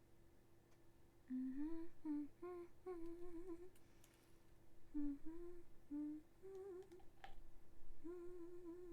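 A woman humming a tune to herself in three short phrases, over a faint steady background tone, with a single click about seven seconds in.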